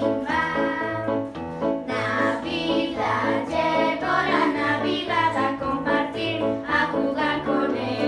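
A group of children singing a song together over electronic keyboard music with a steady, repeating bass line.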